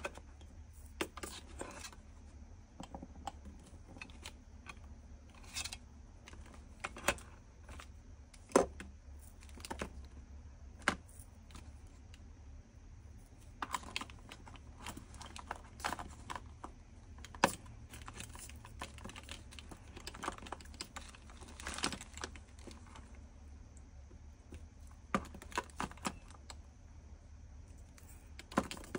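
Small plastic diamond-painting bead bottles clicking and clacking as they are picked up and set down into a clear plastic storage case, in irregular light taps. A steady low hum runs underneath.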